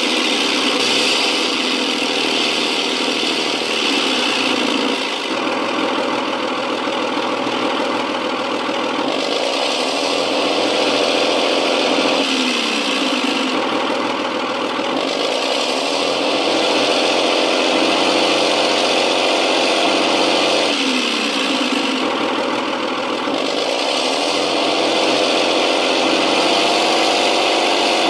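Sampled JS-2 heavy tank V12 diesel engine sound, played by an RC tank's sound unit. It runs continuously, rising in speed and then gliding back down in pitch about every eight seconds, with a hiss higher up that comes and goes.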